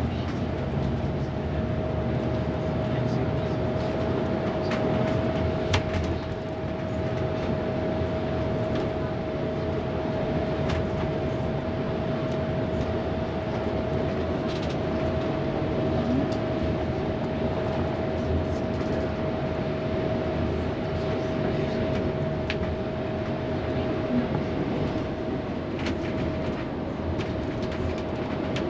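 Steady engine and machinery hum of a ship under way, with a constant mid-pitched whine and a few faint clicks.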